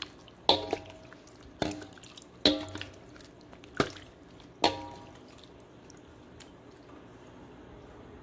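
A spoon stirring sangria, red wine full of sliced fruit, in a bowl: liquid sloshing, with about five knocks of the spoon against the bowl over the first five seconds, each ringing briefly.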